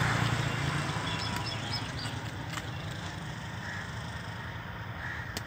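A motor vehicle passing and fading away. Its engine hum and road noise are loudest at the start and die down over the next few seconds.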